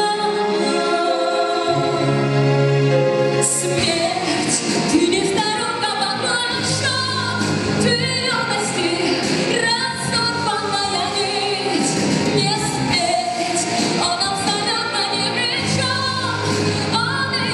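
A song: a woman singing over instrumental accompaniment, on long held notes at first, then a busier passage with sharper hits coming in about four seconds in.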